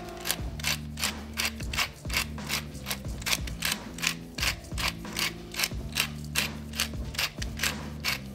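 Twist pepper mill grinding black pepper: an even run of ratcheting clicks, about three to four a second.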